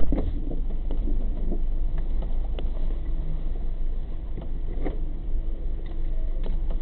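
A sharp clunk right at the start, then a steady low rumble in the stopped Kia Soul's cabin with a few light knocks as the driver climbs out through the open driver's door.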